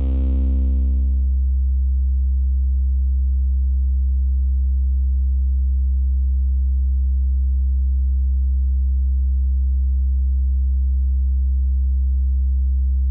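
Korg NTS-1 digital synthesizer playing a multi-vector phaseshaping custom oscillator on one low held note. Its overtones fade away in the first second and a half, leaving a steady, almost pure sine tone.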